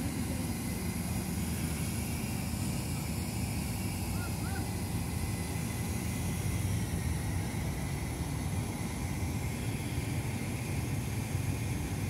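Large mobile crane's diesel engine running steadily with a low, even rumble.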